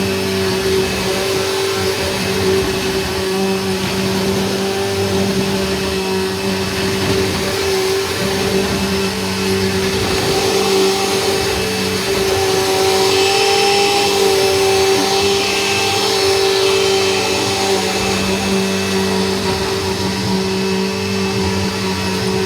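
Household vacuum cleaner running steadily: a constant motor hum and whine over a rush of airflow hiss, with the hiss getting a little brighter for a few seconds around the middle.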